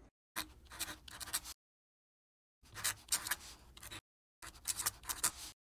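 Three short bursts of rapid, irregular clicking and scratching, each about a second long, from an edited-in sound effect. Each burst cuts off into dead silence.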